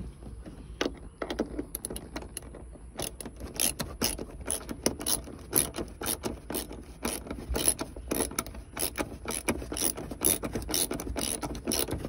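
Socket ratchet wrench clicking in quick irregular runs as it turns a seat belt anchor bolt through the floor carpet. The clicks start about a second in and come thicker from about three seconds on.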